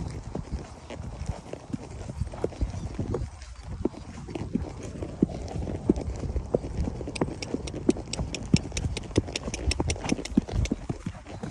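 Horse's hooves clip-clopping under a rider, heard from the saddle. About seven seconds in the hoofbeats turn into sharper, quicker clicks.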